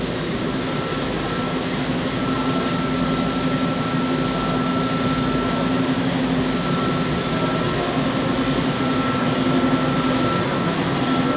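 Steady mechanical hum under a broad rushing noise, with a thin steady whine above it that drops out briefly a few times.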